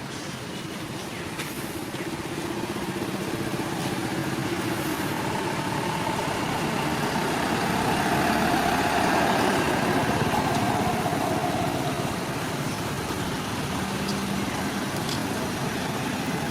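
A motor vehicle engine running steadily with a constant hiss of noise, growing louder about halfway through and then easing slightly.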